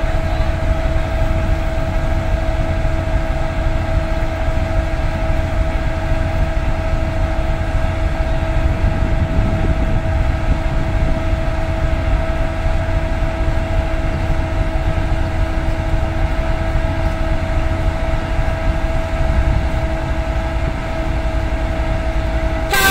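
GEU40 diesel-electric locomotive idling at a standstill: a steady low rumble with a constant hum over it.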